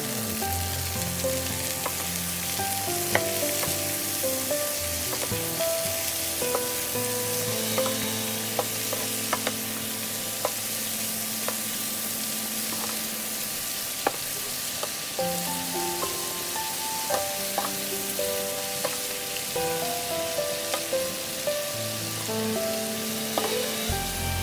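String beans and pork stir-frying in a nonstick frying pan: a steady sizzle, with a wooden spatula scraping and knocking against the pan now and then.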